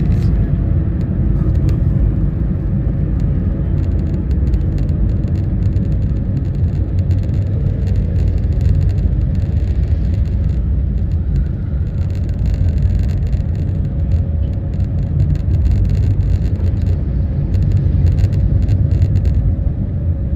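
Steady low rumble of a car's engine and tyres heard from inside the cabin while driving slowly in city traffic.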